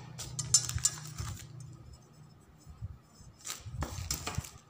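Hands handling small craft pieces: light rustling with small clicks and taps, busiest in the first second and a half, with a few more clicks near the end.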